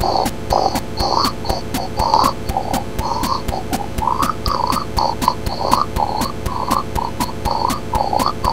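Goregrind song: a fast, evenly spaced drum beat of about five hits a second under distorted, guttural vocals.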